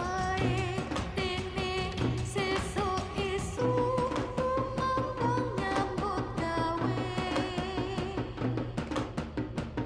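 Music for a Dolalak folk dance: a wavering, ornamented sung melody over steady drumming.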